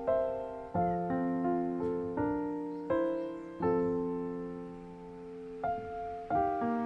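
Background music: slow, gentle piano, single notes and soft chords struck one after another, each ringing and fading away.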